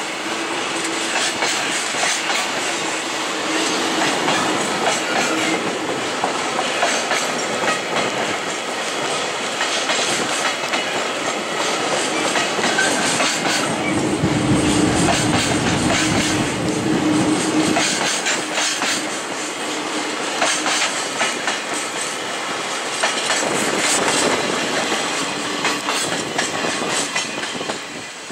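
Freight train of container wagons rolling past close by as it pulls out, its wheels clacking over the rail joints in a steady, continuous rattle.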